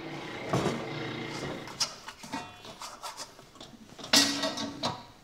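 Kitchen handling noises while water is measured out: containers and utensils knocked, rubbed and set down, the loudest a short clatter about four seconds in.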